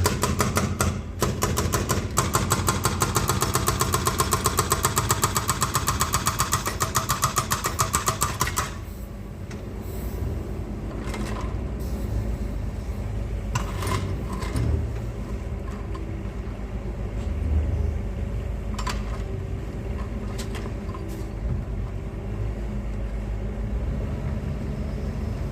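Excavator at work: a loud, rapid, regular pounding that stops abruptly about nine seconds in, then the engine running steadily with a few short knocks.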